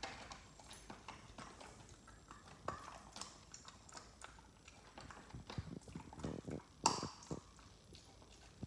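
Husky gnawing and chewing on a chew toy: irregular crunching clicks from teeth on the toy, the loudest about seven seconds in.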